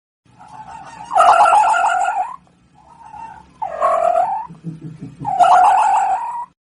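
An animal calling three times, each call a rough, pulsing cry about a second long, with a fainter cry between the first two.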